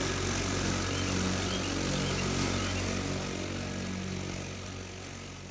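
Electric ride-on mower's blade motor spinning the cutting blades through grass: a steady electric hum under an even rushing noise, fading away over the last couple of seconds.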